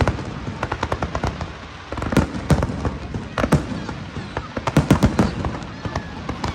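Fireworks going off: a rapid, irregular series of sharp bangs, many coming in quick clusters.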